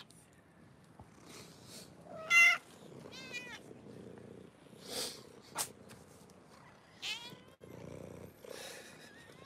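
Several cats meowing close by, short rising-and-falling meows about two seconds in, again a second later and once more near the end, with a low purring between them as they are stroked. A couple of brief sharp clicks midway.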